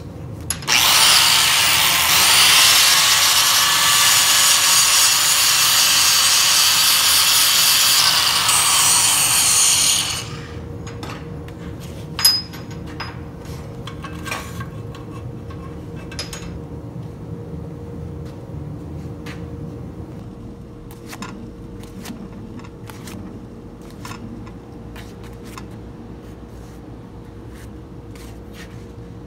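Angle grinder with a thin cut-off wheel cutting into rusty steel, running for about nine seconds and then stopping. Afterwards, scattered clicks and knocks of metal parts being handled, one sharp knock a couple of seconds after the grinder stops.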